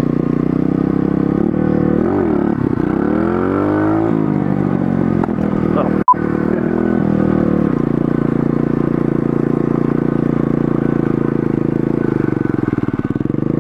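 Pit bike engine running while ridden, its pitch rising and falling as the throttle is worked about two to five seconds in, then holding steady. A sharp click with a momentary drop-out about six seconds in.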